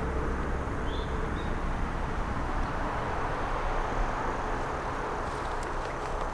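Wacker Neuson SM120 mini skid steer running with a Baumalight mulcher attached: a steady low engine hum under a constant rushing whir. A few sharp clicks come near the end.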